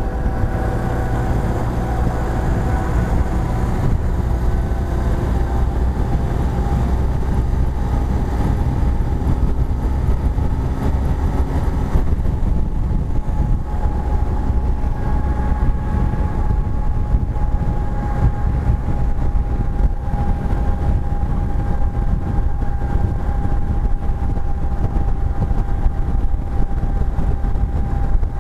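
BMW R1250 GS Adventure's boxer twin holding a steady highway cruise at about 65 mph, its drone mixed with heavy wind rumble. The sound stays even throughout, with no change in revs.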